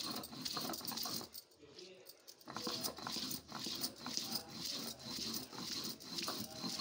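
Stone roller scraping back and forth on a flat sil grinding stone, crushing whole spices: a steady rhythm of rasping strokes about one every two-thirds of a second, with a short lull a little over a second in.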